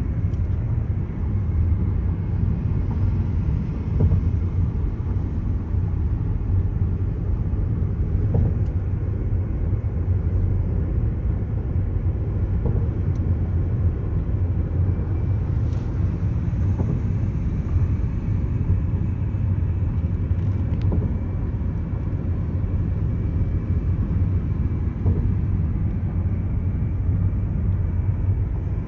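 Road noise heard inside a moving car's cabin: a steady low rumble of tyres on the highway and the engine running.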